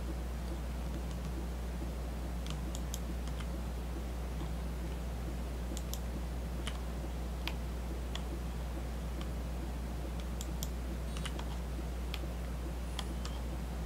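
Scattered, irregular clicks of a computer mouse selecting edges in CAD software, over a steady low electrical hum.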